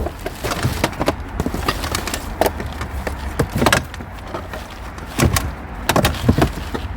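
Irregular knocks, clicks and clatter of junk being handled and moved about while rummaging through a bin, over a steady low rumble like wind on the microphone. A tighter run of knocks comes about five to six and a half seconds in.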